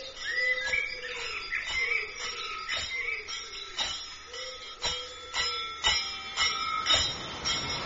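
Music: a pop song's sparse intro, with high gliding bird-like calls, a held high tone, and light sharp bell-like strikes about once a second. It turns fuller and denser right at the end.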